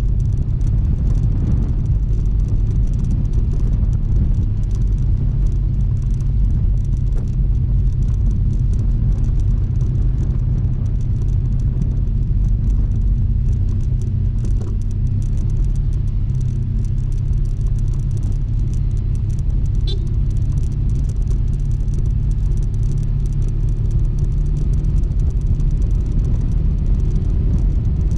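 Steady low rumble of wind and road noise on a front-mounted GoPro riding a Honda ADV160 scooter, with the scooter's single-cylinder engine running underneath at an even pace.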